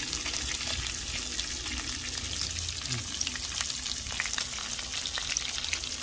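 Atlantic salmon fillets frying in hot oil in a nonstick pan: a steady sizzle full of fine, rapid crackles and spits.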